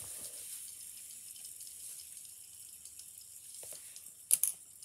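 Light-up fidget spinners spinning in the hand: a faint, steady high whir from the ball bearings that slowly fades as they lose speed, with two sharp clicks near the end.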